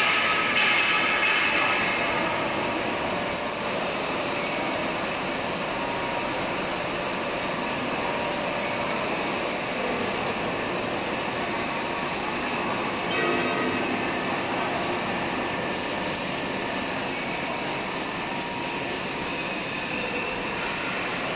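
Steady machinery noise in a heavy-fabrication workshop, with faint squealing tones that come and go, a little louder in the first two seconds and again briefly about 13 seconds in.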